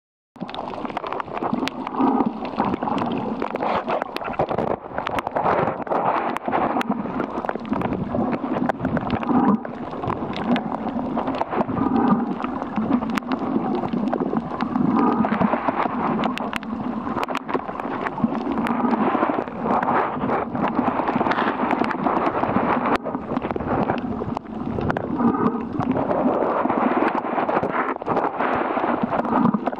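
Underwater recording through a camera housing: gurgling bubbles from a diver's breathing swell and fade every few seconds over a muffled rush of water, with scattered sharp clicks.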